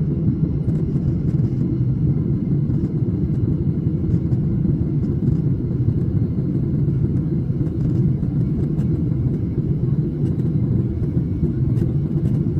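Steady low rumble of an airliner in flight, heard inside the cabin: engine and airflow noise.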